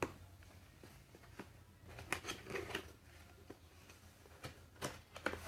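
A cardboard shipping box and its packaging being handled and opened: scattered rustles and clicks, clustered about two seconds in and again near the end.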